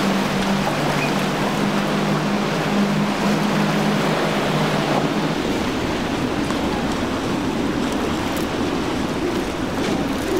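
Triple outboard motors running at speed, a steady drone over the rush of surf and water; about halfway through the drone drops away, leaving only the rushing noise of the waves.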